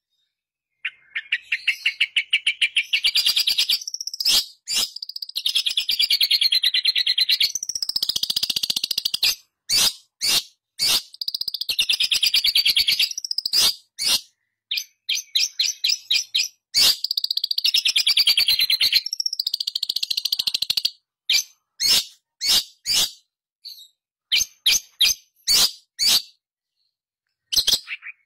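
Long-tailed shrike (pentet) singing: several long runs of very rapid repeated notes, each lasting a few seconds, with short separate calls between them. The runs give way to clusters of short calls near the end.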